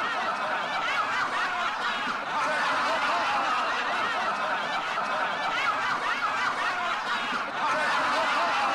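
A group of people laughing together continuously, many voices overlapping, like a laugh-track sound effect.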